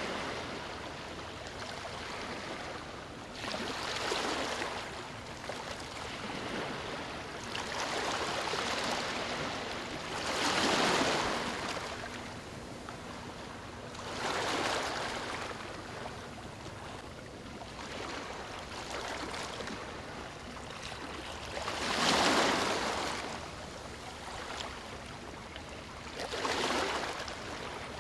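Ocean waves breaking and washing up a shore, a swell of surf every few seconds over a constant wash of water.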